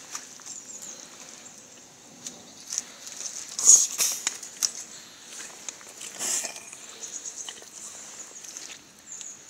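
Rubber boots stepping through wet forest mud: irregular squelching footsteps, loudest about four seconds in and again past six seconds.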